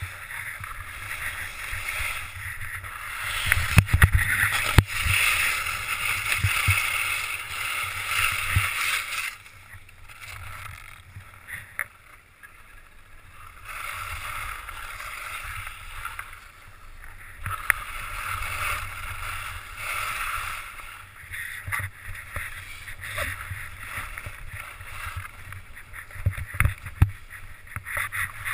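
Skis scraping and hissing over packed snow, swelling and fading with each turn, over a low wind rumble on a helmet-mounted GoPro. A couple of sharp knocks come about four seconds in, and the snow noise drops back for several seconds in the middle.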